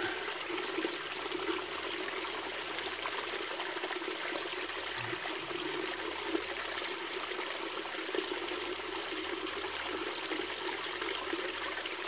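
Stream water running steadily, an even rushing hiss that carries on unbroken.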